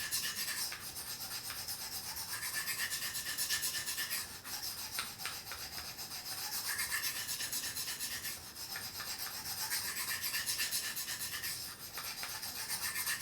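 Steel knife blade scraping back and forth on the coarse side of a diamond sharpening plate, a steady rasp broken by brief pauses about every four seconds. The edge is being ground into fresh metal to raise a burr along its whole length.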